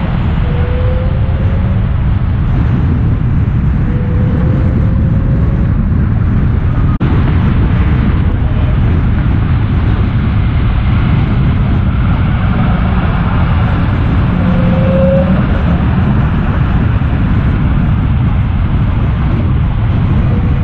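Dodge Charger Hellcat's supercharged V8 cruising with a deep, steady rumble, its supercharger whistle rising briefly three or four times.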